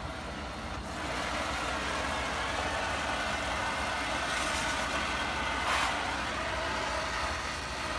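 Oxygen-acetylene welding torch with a size 0 tip burning with a steady hiss while welding cast bronze, getting a little louder about a second in.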